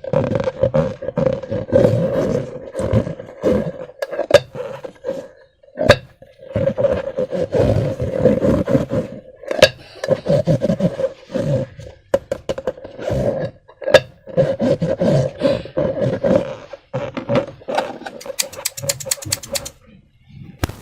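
Rubber balloons and slime being squeezed and handled: a rough, squeaky rubber-rubbing sound in long stretches, broken by several sharp snaps, with a quick run of clicks near the end.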